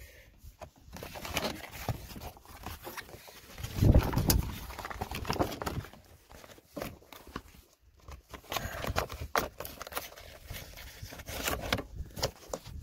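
A plastic door vapor barrier sheet crinkling and rustling in irregular crackles as it is handled and pressed back onto the door's sticky sealant, with a low thump about four seconds in.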